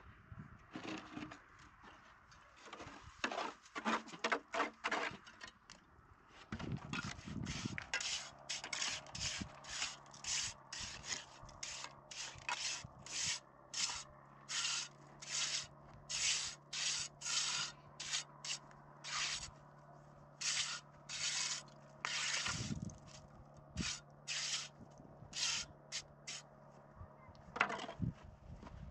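Repeated rubbing strokes, a little under two a second, with a steady low hum starting about seven seconds in.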